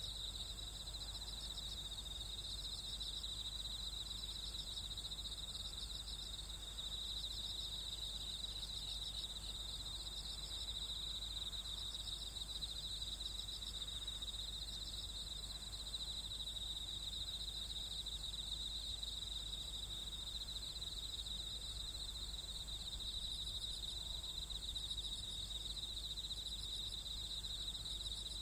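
Night-time insects in the fields chirping as a steady, high, pulsing chorus, with a low steady rumble underneath.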